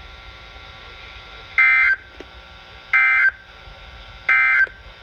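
SAME end-of-message (EOM) data bursts on a NOAA Weather Radio broadcast: three short, identical two-tone digital buzzes about a second apart, marking the end of the warning message, over steady radio hiss.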